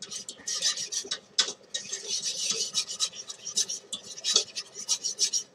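Wire whisk scraping and rattling against a metal saucepan in quick, repeated strokes, stirring a thick flour-and-oil roux.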